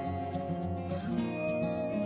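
Background music: strummed acoustic guitar, with a change of chord about a second in.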